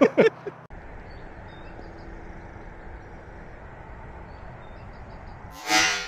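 Steady low outdoor background rumble, then near the end a single short, loud release of a compound bow as an arrow is shot.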